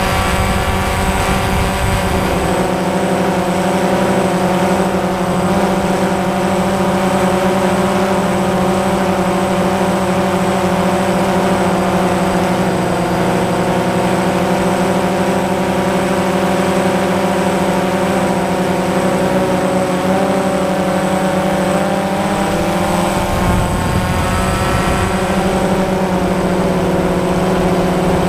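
Multirotor camera drone's motors and propellers humming steadily and loudly, their pitch shifting slightly now and then, with a low rumble at the start and again near the end.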